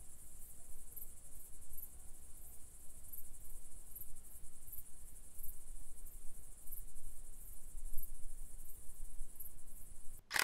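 Crickets chirring steadily in a high band that pulses about one and a half times a second, over a low rumble. One sharp click comes right at the end.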